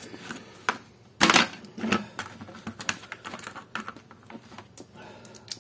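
Irregular clicking and clacking of hand tools and hard plastic being handled on a desk, with one louder clatter a little over a second in.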